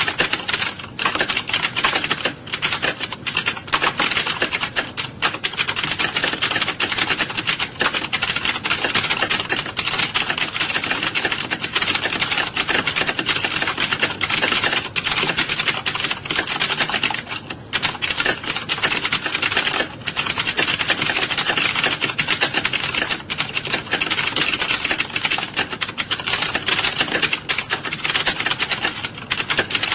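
A roomful of computer keyboards being typed on at once in a typing class: a dense, continuous clatter of key clicks with only brief lulls.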